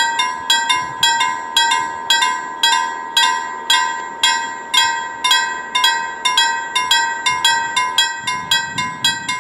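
A level crossing warning bell is ringing rapidly, about four metallic strikes a second, each one ringing out briefly. It is the signal that the barriers are down and a train is approaching.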